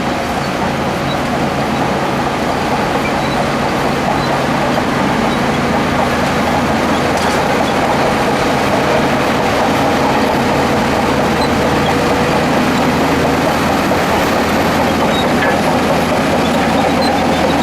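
Shantui DH17C2 crawler bulldozer running steadily as it works, its diesel engine a constant loud drone with a low hum.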